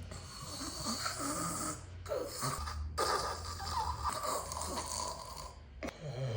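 A person snoring: a long breathy snore, a short one about two seconds in, then another long one that stops just before the end.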